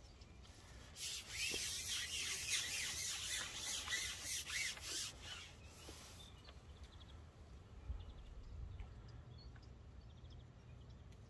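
Close rustling and scraping, like handling noise, starting about a second in and lasting about five seconds, then dying down to a faint background.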